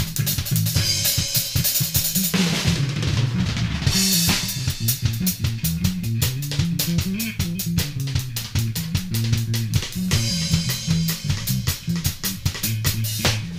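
Drum kit and bass guitar improvising together: dense, fast drum hits over a bass line that steps up and down in pitch. The cymbals drop out for a moment about two seconds in and come back with the full kit at about four seconds.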